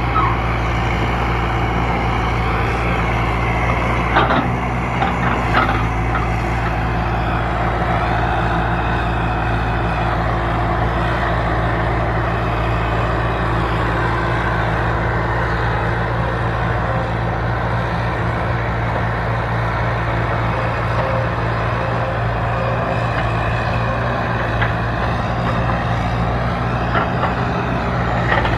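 The diesel engine of an old heavy-equipment machine running steadily under a constant low hum, with a few short knocks about four to six seconds in.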